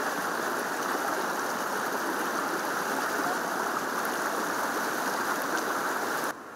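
Floodwater rushing steadily over a road around a half-submerged sign, a dense even rush of flowing water; it cuts off suddenly near the end.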